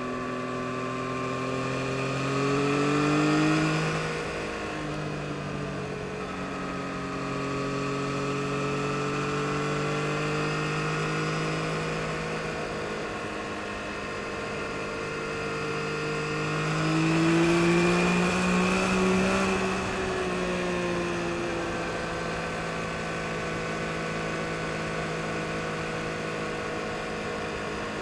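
2022 Yamaha MT-09 SP's 890 cc inline-three engine running under way, its pitch rising to two louder surges of acceleration, about three seconds in and again around eighteen seconds, each easing back to a steadier cruising note.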